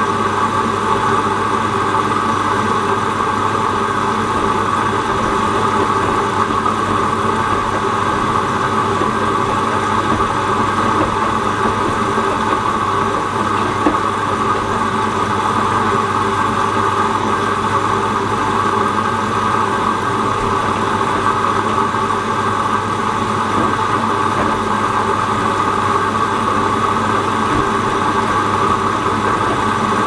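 Hoover Dynamic Next front-loading washing machine running steadily, its drum motor turning and tumbling wet laundry in water with a constant hum.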